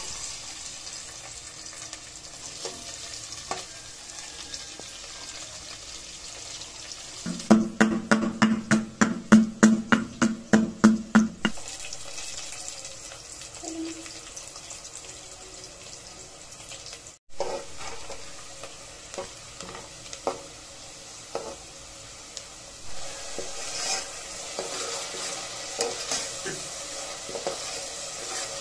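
Sliced onions sizzling as they fry in oil in an aluminium pot, with a steel spoon knocking and scraping against the pot as they are stirred. About a quarter of the way in comes a run of rapid, ringing knocks, about three or four a second.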